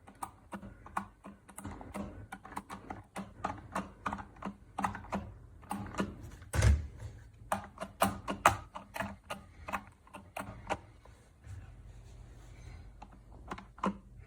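Irregular run of sharp clicks and taps, a few a second, like typing on a keyboard, with one louder thump about six and a half seconds in; the clicks die away near the end, leaving a low hum.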